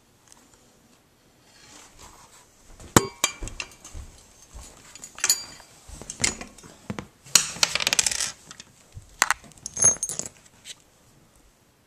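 Metal hardware of a drum throne being handled: scattered clinks and knocks, with a quick run of rattling clicks about halfway through.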